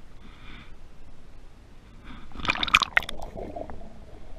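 River water splashing and gurgling as a hand-held smallmouth bass is lowered into the river and released, with a burst of sharp splashes about two seconds in.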